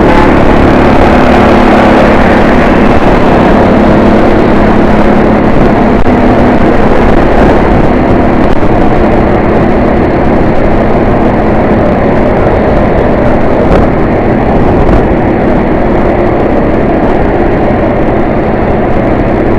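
Busy road traffic: many vehicle engines running together in a loud, steady wash of noise, with a low engine hum strongest in the first few seconds.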